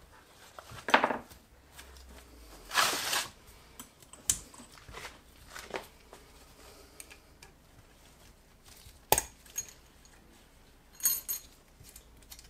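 Scattered metallic clinks and knocks as cylinder-head parts are handled in a steel tray, with a brief scuffing noise about three seconds in. Near the end, one clink leaves a short high ring.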